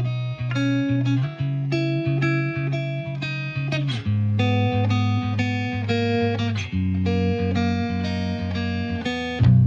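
Background music led by plucked guitar, with sustained notes changing on a steady beat.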